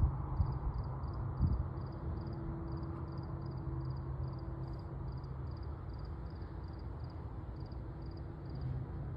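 Distant Norfolk Southern diesel freight locomotive, a steady low rumble with a steady hum. An insect chirps over it about three times a second, and a couple of thumps come in the first two seconds.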